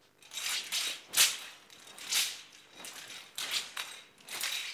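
A pair of Chinese broadswords (shuangdao) swishing through the air as they are wrapped and swung around the body in a turning drill, about five swishes spaced roughly a second apart.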